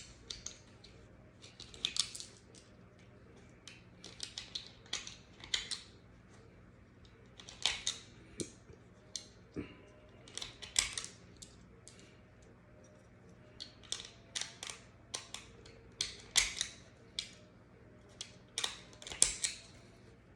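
Irregular clusters of short, sharp clicks and scrapes from handling and cleaning the parts of a Smith & Wesson M&P 9mm pistol, over a low steady hum.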